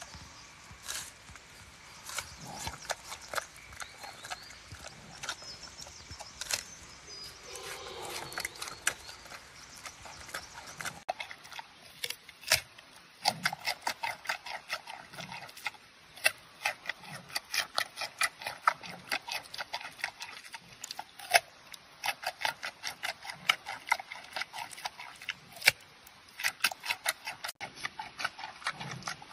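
Giant panda chewing raw food close up, first fruit and then a crisp carrot, with wet crunching bites that come a couple of times a second from about ten seconds in.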